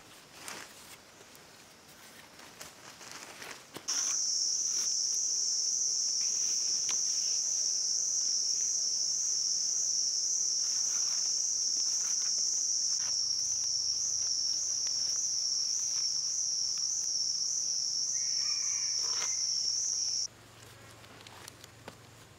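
An insect's high, steady, shrill buzzing call starts suddenly about four seconds in and cuts off abruptly about twenty seconds in. Underneath it are faint rustles and clicks of dry vines being woven into a basket.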